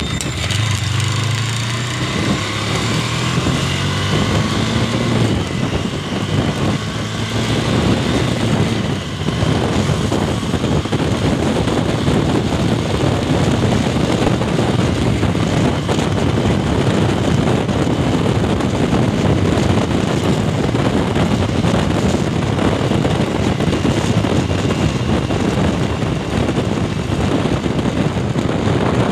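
KTM Duke motorcycle's single-cylinder engine pulling up through the revs as the bike accelerates in the first few seconds, then a steady rush of wind on the microphone over the engine at about 80 km/h.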